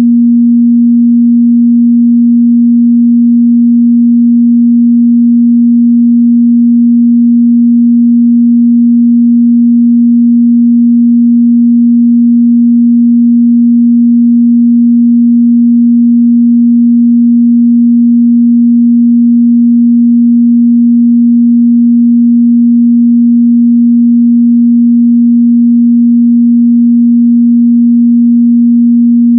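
Steady 237 Hz sine-wave test tone, a single pure mid-bass pitch held constant at high level without any change.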